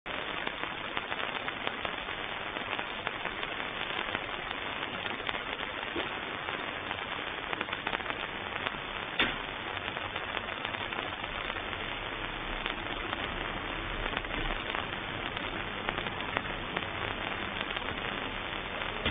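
Steady static hiss with frequent faint crackles and one sharper click about nine seconds in.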